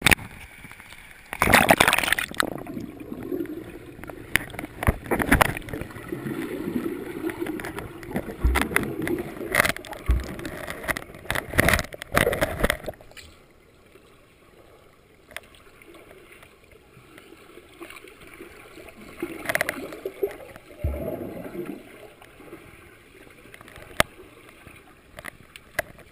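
Swimming-pool water heard muffled through an underwater camera: gurgling, bubbling and splashing churned up by a swimmer's strokes and kicks, with a few sharp knocks. It is loud and busy for the first half, then quieter, with another burst of splashing about two-thirds of the way in.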